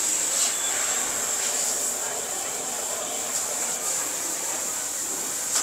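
Steady hiss of a gas torch heating a plastic car bumper to reshape and repair it.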